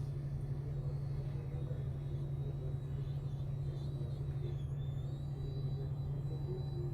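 Steady low hum with a rushing noise underneath, from bench equipment running during the rework.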